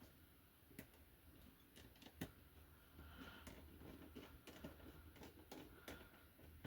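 Near silence with a few faint, sharp clicks of a small screwdriver and tiny screws being handled.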